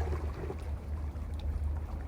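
Sea waves washing over a rocky shore: a steady low rumble of moving water with a few faint small splashes.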